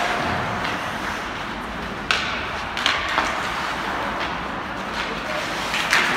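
Ice hockey game in an arena: a steady wash of rink and crowd noise, broken by four sharp knocks of play, twice in quick succession a few seconds in and once more near the end.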